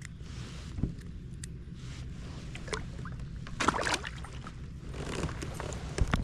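Handling sounds aboard a kayak as a caught bass is put on a stringer: scattered small clicks and knocks, with a louder rustling, splashy burst about four seconds in, over a steady low rumble.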